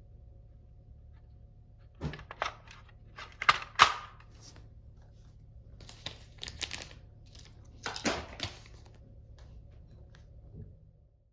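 Plastic toy parts and packaging of a Plarail level-crossing set being handled: sharp clicks and short crinkling rustles in several groups, starting about two seconds in, with a steady low hum underneath. The audio cuts off near the end.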